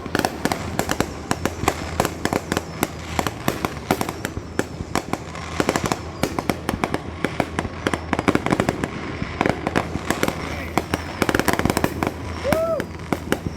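Fireworks display: a dense barrage of overlapping bangs and crackling pops going off in quick succession, with thicker runs of fast pops near the end.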